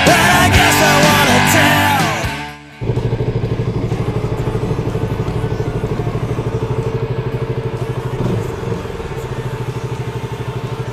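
Rock music with singing, fading out about two and a half seconds in; then a motorcycle engine idling steadily with a fast, even pulse.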